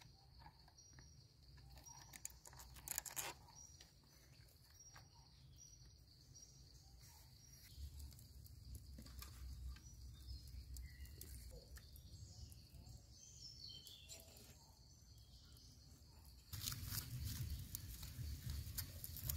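Soft handling clicks and rustles as a banana-trunk sheath parcel is wired shut and laid on the coals, over a steady high chirping in the background. About 16 seconds in, louder crackling starts as the sheath chars over the glowing embers.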